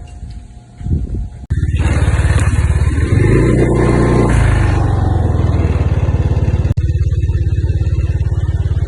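Motorcycle engine running loud and evenly, starting abruptly about a second and a half in; around the middle it revs up and settles back.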